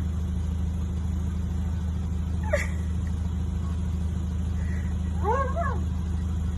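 A steady low hum runs under two short animal vocalisations: a sharp yelp about two and a half seconds in, and a brief whine that rises and falls just after five seconds.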